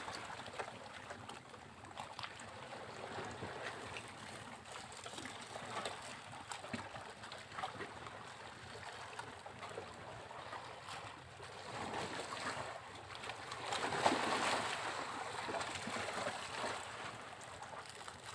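Sea waves washing onto a beach, a steady hiss of surf, with a larger wave breaking and surging about three-quarters of the way through, then slowly dying away.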